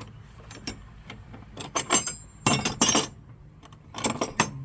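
Metal hand tools clinking and rattling against each other as they are rummaged through, in several short bursts of sharp clinks: a search for a 10 mm socket or wrench.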